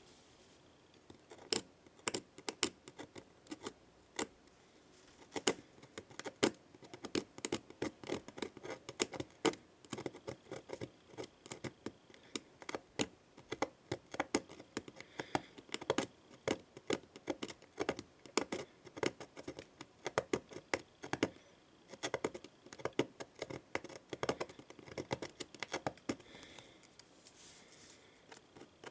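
Hand file scraping the bent aluminium corner of an iPad Air's frame in quick, short strokes, several a second, with a few brief pauses. The corner is being filed down to make the uneven edge flush.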